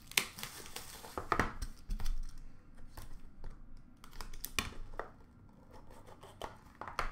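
Plastic shrink-wrap crinkling and tearing as a trading-card box is unwrapped, with scattered sharp clicks and taps of the cardboard box being handled.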